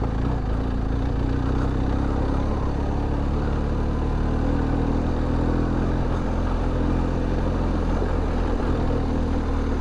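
BMW R1250GS boxer-twin engine running steadily.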